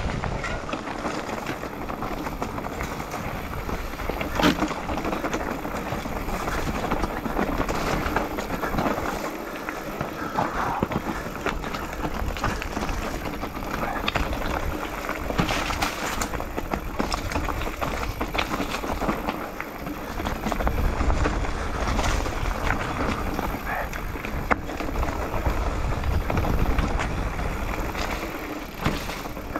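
Mountain bike descending a dry dirt trail: tyres crunching over loose stones, dirt and dry leaves while the bike rattles steadily, with a few sharp knocks as it hits bumps.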